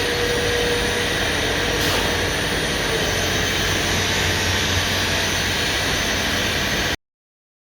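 4-axis CNC router running with a loud, steady rushing noise; the sound cuts off abruptly about seven seconds in.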